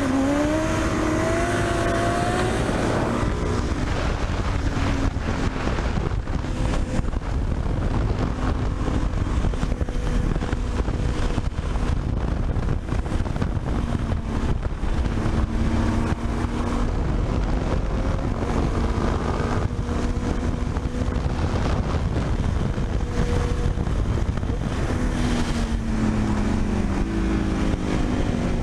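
Motorcycle engines running at highway speed under heavy wind noise on the microphone. The engine note rises in pitch over the first few seconds as it accelerates, holds fairly steady, then rises and falls again near the end.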